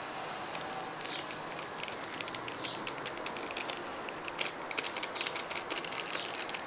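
A small foil seasoning sachet crinkling and clicking as it is shaken and squeezed to empty chili powder onto a plate: a faint scatter of quick, irregular ticks.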